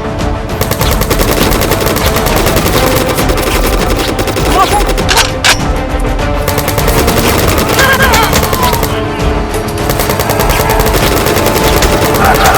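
Rapid, sustained automatic gunfire sound effects layered over background music.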